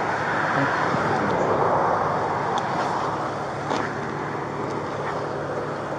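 Road traffic noise: a passing vehicle's rush swells over the first few seconds and then fades, with a couple of faint clicks.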